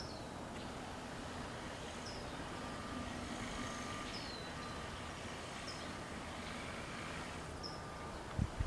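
Small birds giving short, high chirps that drop in pitch, every second or two, over a steady rumble of traffic. A couple of low thumps near the end.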